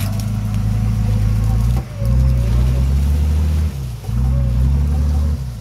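Nissan Patrol's engine revving hard under load while the 4x4 is bogged in mud and broken ice. There are three surges with brief drops about two and four seconds in.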